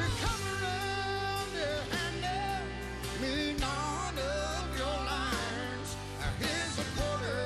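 Live country band playing an instrumental break: a lead line of bending, wavering notes over steady bass and drum hits.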